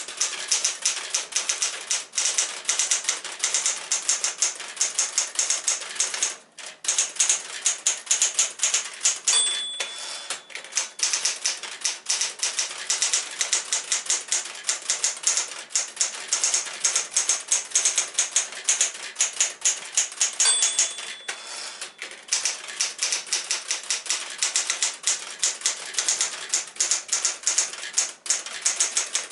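1964 Smith-Corona Galaxie II manual typewriter typing in fast runs of sharp key-and-typebar clacks, with a few brief pauses. About nine seconds in and again about twenty seconds in, a short ring sounds, the end-of-line margin bell.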